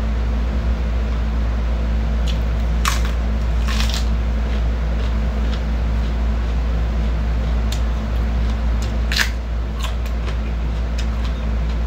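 Crisp lettuce leaves being bitten and chewed, with a few sharp crunches about three, four and nine seconds in. A steady low hum runs underneath.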